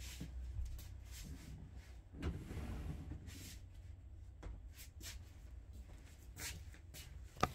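Faint scattered clicks, light knocks and rustles over a low steady hum, with one sharper knock near the end.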